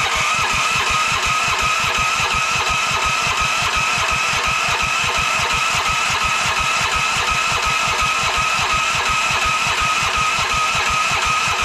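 Raven 15 hp 420 cc single-cylinder engine being cranked by its electric starter on full choke without catching: a steady whine over an even chugging rhythm, stopping abruptly near the end. The owner suspects the starter isn't getting enough power, perhaps a battery that isn't turning the engine over fast enough.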